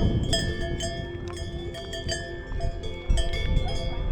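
Several cowbells on grazing livestock clanking irregularly, each strike ringing on, with bells at a few different pitches overlapping.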